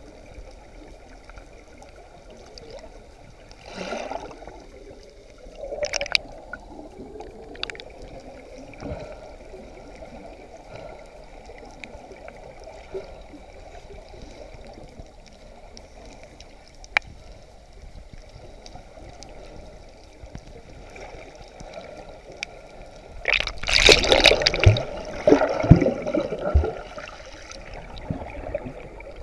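Muffled underwater water noise: bubbling and gurgling, with short bursts about four and six seconds in and a louder stretch of churning bubbles and splashes near the end, likely from snorkelers kicking near the camera.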